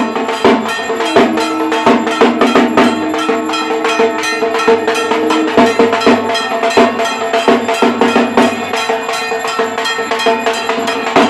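Dhak drum beaten with sticks together with a hand-held brass gong (kansar) struck in time, a fast steady beat of several strikes a second over the gong's ringing tone.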